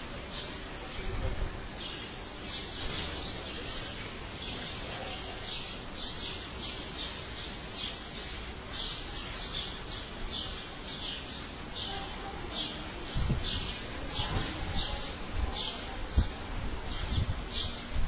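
A bird chirping over and over, short high chirps about once or twice a second. Low bumps and rumbles come in over the last few seconds.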